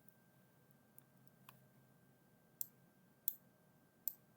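Computer mouse clicks: three sharp clicks spaced under a second apart, with a couple of fainter ticks before them.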